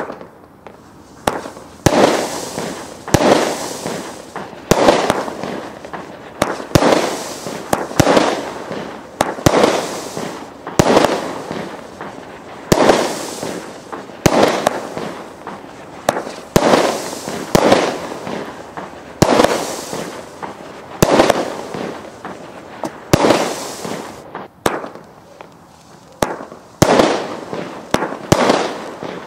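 WATT 8-Ball (2534) consumer fireworks cake firing its shots in sequence, about one a second. Each shot is a sharp bang followed by a noisy tail that dies away before the next.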